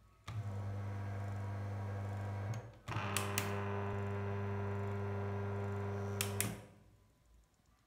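230 V AC washing-machine motor, with its run capacitor, running with a steady mains hum. The power cuts out briefly about two and a half seconds in and comes back with switch clicks. A little after six seconds it is switched off with more clicks and the hum stops.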